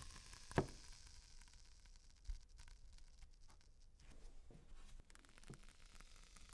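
Faint crackling and ticking of a cured polyester fibreglass mould releasing from its pattern as the pattern is pulled away, with a sharper crack about half a second in and another near two seconds in.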